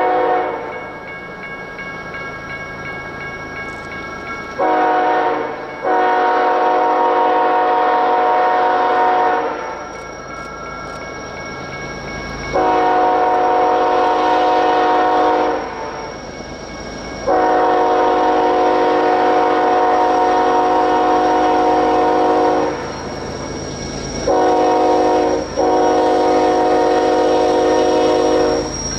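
Horn of an approaching BNSF diesel freight locomotive, sounded as a series of long, steady blasts with short breaks between them. A shorter blast comes about five seconds in and another about 25 seconds in. Between the blasts the running train carries on as a steady rumble.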